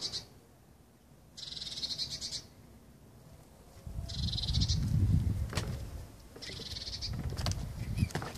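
A high, buzzing trill from a small animal, about a second long, repeated four times. From about halfway through, wind rumbles on the microphone, and a few sharp clicks come near the end.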